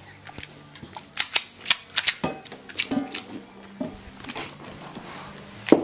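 Toddlers banging hard toys, making an irregular string of sharp clacks and taps that starts about a second in, several a second at times.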